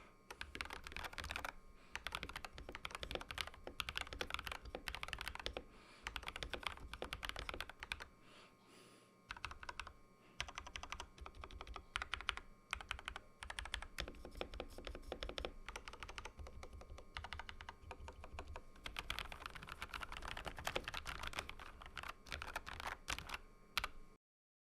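Typing sound test on a Royal Kludge RK84 mechanical keyboard fitted with pre-lubed Feker x Matcha linear switches, silicone dampening and Glorious GPBT keycaps: a fast stream of keystrokes with short pauses about 8 and 10 seconds in. The sound cuts off abruptly near the end.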